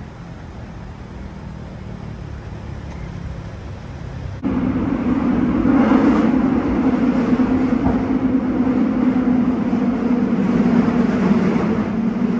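Low, steady street traffic noise, then an abrupt cut about four and a half seconds in to the inside of a Seoul Subway Line 7 car under way in a tunnel: a loud, steady rumble and hum of the running train.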